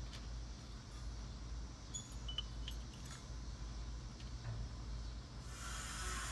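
A low steady rumble with a few faint metallic clinks, from a railroad worker at the coupler between two steel-coil cars where a knuckle broke. A steady hiss starts near the end.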